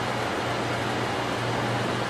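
Steady running noise inside the driver's cab of a 500 series Shinkansen moving slowly: an even rush with a low hum underneath.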